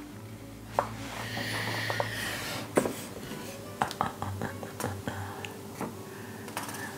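Soft background music, with a few light clicks and knocks from the wooden-framed boards being handled.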